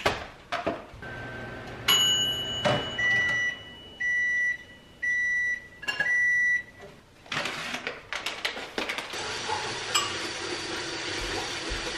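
Microwave oven beeping four times, about once a second, over a steady high electronic tone. A steady hiss follows for the last few seconds.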